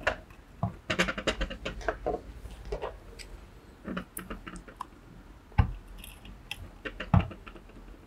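Small screwdriver and wire ends clicking and scraping against the plastic screw-terminal block of a relay board, quick clusters of clicks at first, then scattered ones, with two louder knocks in the second half.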